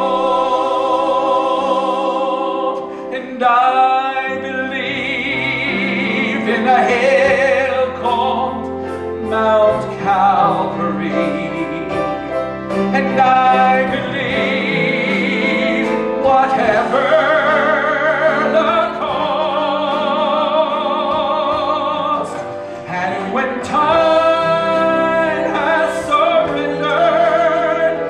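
Church worship music: a singing voice with instrumental accompaniment, long held notes with vibrato.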